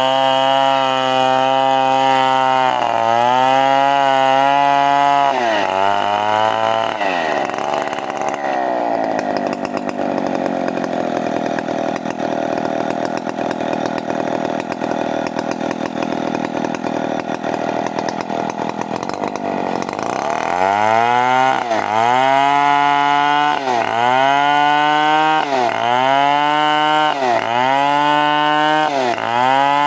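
Stihl 070 two-stroke chainsaw running at high revs. A few seconds in, it pulls down and holds at lower, rougher revs for about twelve seconds, as when the chain is under load cutting wood. In the last ten seconds its revs drop and climb again about once a second.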